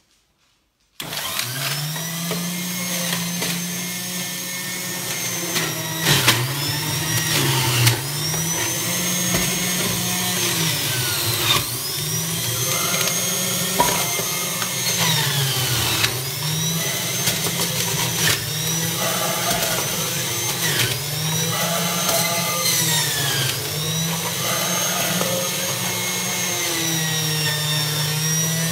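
Philips centrifugal juicer switched on about a second in and running rather loudly, a hum with a high whine above it. Its motor dips in pitch and recovers several times as fruit and vegetables are pushed down the chute onto the spinning blade, with a few sharp knocks.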